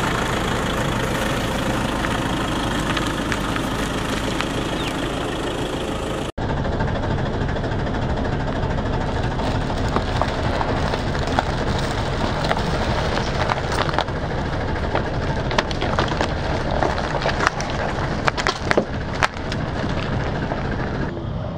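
A car's engine running slowly while its tyre rolls over wrapped chocolate bars and cardboard boxes, crackling and crunching the wrappers and packaging. The cracks grow thicker and sharper later on, loudest a few seconds before the end.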